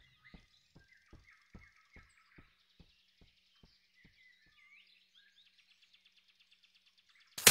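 Quiet animated-forest ambience with faint bird chirps, over a run of soft knocks that slow and fade over the first few seconds. A sudden loud hit comes right at the end.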